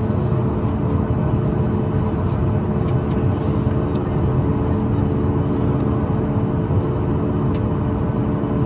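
Steady cabin drone inside a Boeing 737 MAX 8 on the ground: a low rumble carrying several steady humming tones, with a few faint clicks.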